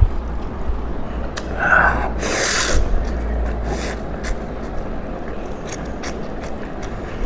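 A person eating noodles: a short loud slurp, a rushing intake of air, about two and a half seconds in, followed by small scattered clicks of chewing and utensils, over a steady low hum.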